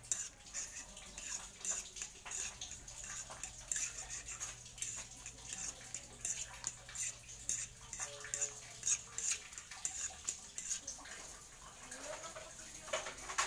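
Metal spatula scraping and clinking against a metal wok, many quick strokes, while stirring silk squash and egg in a bubbling broth, with a steady simmering hiss underneath.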